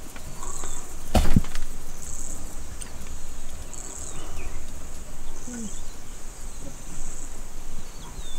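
Grassland insect calling in short buzzy pulses about every one and a half seconds, with a single sharp knock about a second in.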